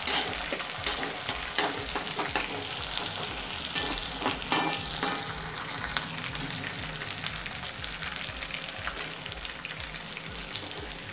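Sliced onions, garlic and ginger sizzling in hot mustard oil in a non-stick kadhai, being fried down to golden brown. A spatula stirs them, scraping and knocking against the pan now and then.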